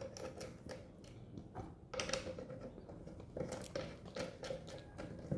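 Irregular small clicks, knocks and rattles of battery cables and clamps being handled and fitted onto the car power inverter's two terminal posts, a little louder about two seconds in and again past the middle.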